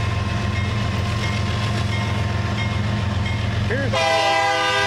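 Diesel locomotives of a loaded grain train rumbling past slowly, a BNSF unit leading with a Norfolk Southern unit second. About four seconds in, the engine rumble drops as the locomotives go by and a train air horn starts a long blast of several notes at once.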